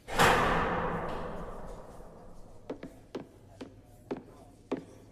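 A loud crash at the close of a stage song that fades away over about two seconds, followed by about half a dozen single sharp taps at uneven intervals of roughly half a second.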